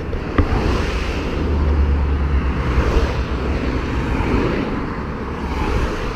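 Road traffic passing on a busy main road: the tyre and engine noise of passing vehicles swells and fades, with a heavy low rumble as one goes by a couple of seconds in. A single sharp click near the start.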